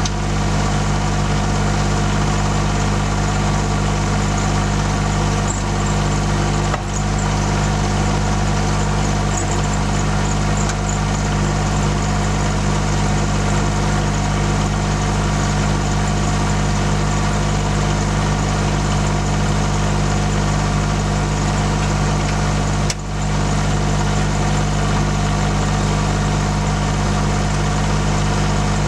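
Cub Cadet 1772 garden tractor's diesel engine idling steadily, with two brief dips in level, one about a quarter of the way in and one about four-fifths of the way in.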